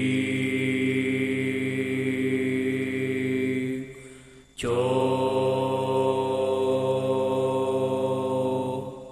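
Two long, low chanted drones, each held steady for about four seconds, the second starting about four and a half seconds in.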